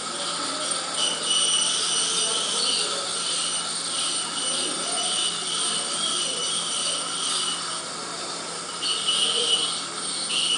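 Dental equipment working in a patient's mouth: a steady high-pitched hissing whine that breaks off about eight seconds in, then comes back briefly twice.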